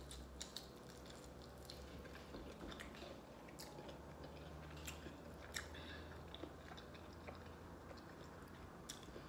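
A person chewing a mouthful of lobster tail, heard as faint, scattered wet clicks and smacks of the mouth over a low steady hum.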